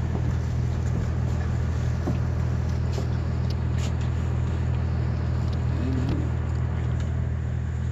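Steady low drone of a running motor, with a few faint clicks from dogs eating out of a dish.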